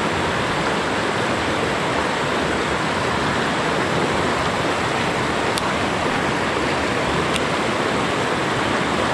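Rapids of a shallow mountain stream rushing over boulders: a steady, even water noise.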